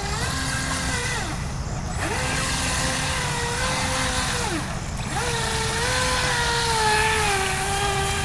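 Atomik Barbwire brushless RC boat running flat out across floodwater, its electric motor giving a high whine that climbs, holds and drops off as the throttle is applied and released three times, the last run carrying on past the end. A steady low rumble sits under it throughout.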